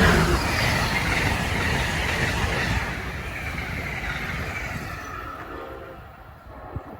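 Passenger train passing at speed and receding: rumble of wheels on rails, loudest at first and fading over about six seconds, with a whine that falls in pitch as the train goes away.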